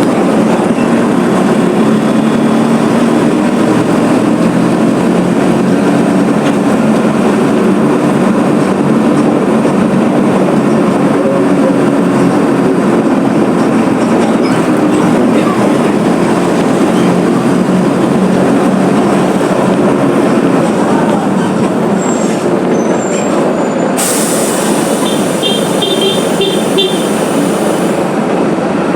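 Mercedes-Benz OF 1721 BlueTec 5 bus's diesel engine running with the bus under way, with steady loud road and body rattle. Near the end comes a short run of high beeps.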